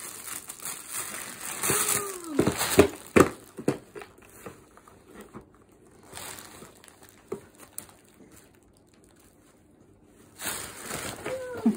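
Crinkly foil and paper gift wrap being grabbed and crumpled, loudest in the first few seconds and sparser after. A short falling coo-like vocal sound comes about two seconds in and again near the end.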